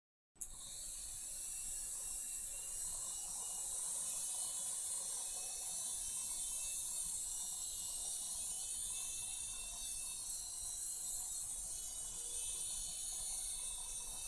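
Tiny electric motors and rotors of a Gyro Zoomer mini RC helicopter whirring steadily at a high pitch. The sound cuts in abruptly about half a second in.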